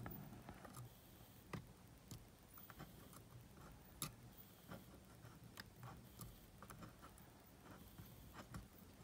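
Faint, irregular small clicks and ticks of metal tweezers prying and scraping at the plastic mid-frame and circuit board of an opened cassette Walkman, over near silence.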